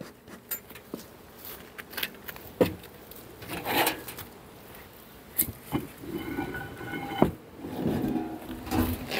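Wooden beehive parts being handled during a hive inspection: scattered knocks, clicks and scrapes, with a brief buzzing tone about six seconds in.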